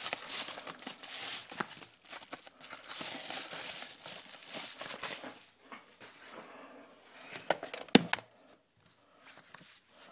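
A packaging mailer crinkling and rustling as it is handled and opened. A few sharp taps come about seven and a half to eight seconds in.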